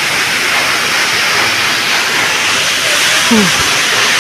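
Waterfall's steady rushing water noise, loud and even. A short falling tone cuts across it a little over three seconds in.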